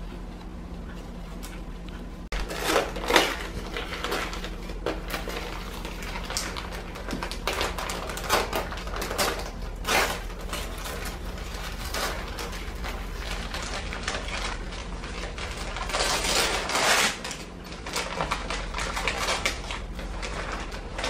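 Gift-wrapping paper crinkling and rustling as a present is unwrapped by hand, in irregular crackly bursts starting about two seconds in and loudest around three quarters of the way through.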